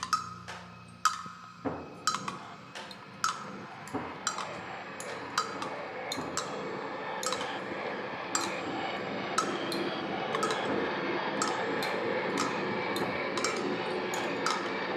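Experimental live music: sharp taps and clinks, each ringing briefly, about one or two a second, over a wash of sound that thickens about two seconds in.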